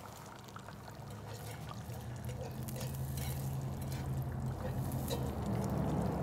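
Beaten eggs frying in olive oil in a cast-iron skillet, a soft sizzle that grows louder as they set, with light clicks and scrapes of a fork stirring them from about four seconds in. A low steady hum runs underneath.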